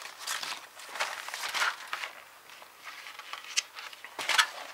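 Paper rustling and crinkling in uneven bursts as a plastic model kit's instruction booklet is handled, with a small sharp tap about three and a half seconds in.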